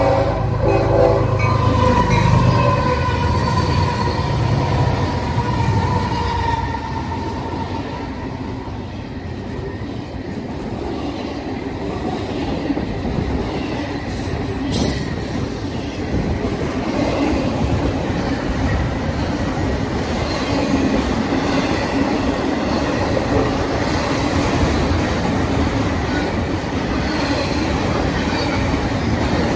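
Union Pacific double-stack intermodal train passing close by. The air horn sounds and stops about a second in, and the lead diesel locomotives go by. After that comes a steady rolling rush from the container cars' wheels on the rails.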